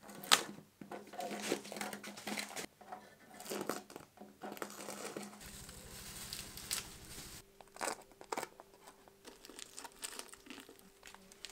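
Plastic masking foil and masking tape being peeled off a freshly painted engine bay, crinkling and tearing in irregular rustles, with a sharp rip just after the start.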